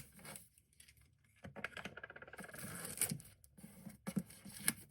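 Packaging being torn and peeled open by hand: a scratchy tearing rustle starting about a second and a half in and lasting nearly two seconds, among a few sharp taps and clicks.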